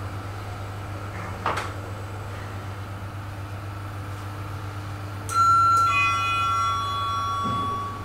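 Lift car running with a steady low hum and a click about one and a half seconds in. About five seconds in an electronic two-note chime sounds, a high note then a lower one, ringing for about two seconds: the lift's arrival chime at the floor.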